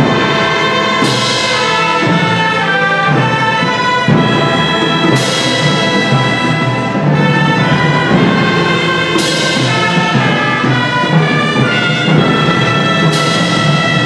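A Chinese orchestra of bowed, plucked and wind instruments plays held chords. A bright, crashing stroke rings out about every four seconds and dies away.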